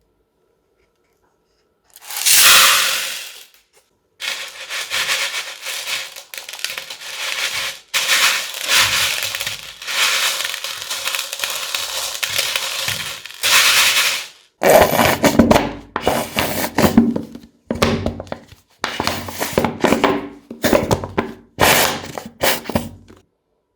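Crunchy slime mixed with beads and foam pieces being pressed and squeezed by hand: a short loud crackle about two seconds in, then a long run of dense crackling, then about eight separate squeezes, each a burst of crunching.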